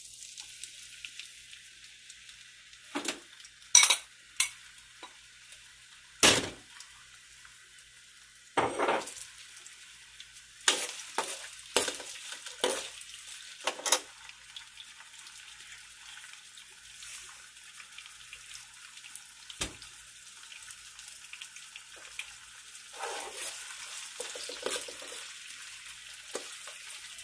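Chopped onions sizzling in hot oil in a nonstick pan, a steady frying hiss, with sharp knocks and scrapes of a metal spoon stirring against the pan, most of them in the first half.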